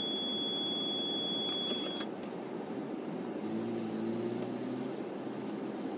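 Off-road SUV's engine running at low speed, heard from inside the cabin, its note picking up slightly past the middle. A steady high electronic beep sounds over it and cuts off about two seconds in.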